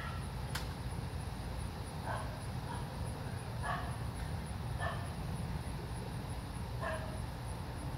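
A dog barking four times at irregular intervals, over a steady low rumble.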